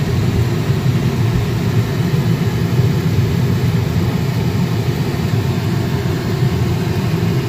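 Steady low rumble of a car's engine and tyres on the road, heard from inside the cabin of a slowly moving car.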